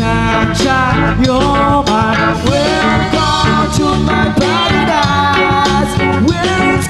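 Live band playing a reggae-ska song: a man singing into a microphone over guitar and drum kit.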